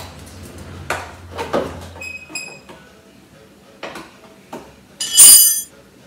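Hand tools and scooter parts knocking and clicking during reassembly. There is a short metallic ring about two seconds in and a louder, brighter metallic clink a little after five seconds.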